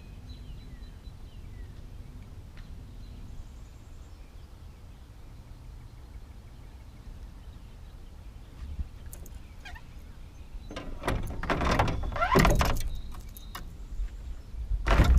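Geese honking: a loud run of calls about two-thirds of the way through and another burst near the end, over a low steady rumble.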